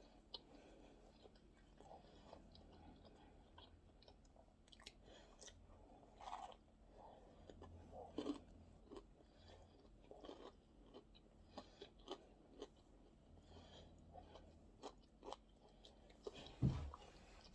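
A person quietly chewing and biting into a hamburger and french fries, with soft mouth sounds and scattered crunches. A short, louder low sound comes near the end.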